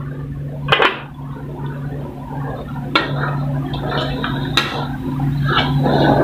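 Chicken pieces bubbling in broth in an aluminium wok, stirred with a wooden spatula that scrapes and knocks against the pan a few times.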